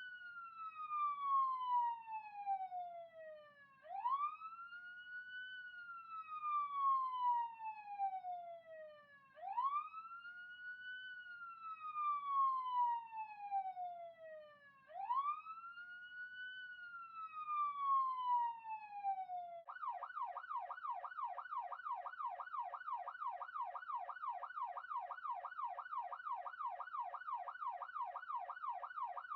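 Police siren sounding a wail: each cycle rises quickly and then falls slowly over about five seconds. About two-thirds of the way through it switches to the fast yelp, about three rises and falls a second.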